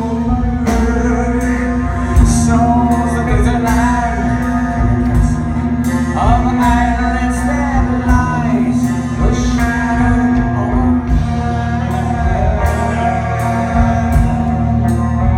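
Heavy metal band playing live in a large hall: electric guitars, bass and drums with regular cymbal hits, and a male singer's voice over them.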